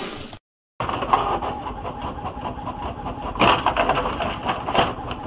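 Desktop printer running as it feeds out a sheet of paper, starting about a second in, with several short clicks over the steady mechanical noise.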